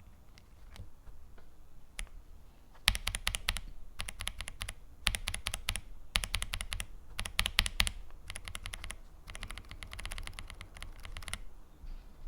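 Kailh MX-style linear mechanical keyboard switches being typed on: a few faint single clicks at first, then runs of fast keystrokes in several bursts with short pauses, stopping shortly before the end.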